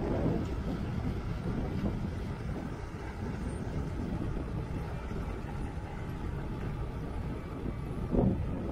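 Heavy diesel earthmoving machinery running: excavators and a tracked loader at work give a steady low engine rumble, with two short louder swells, one at the start and one near the end.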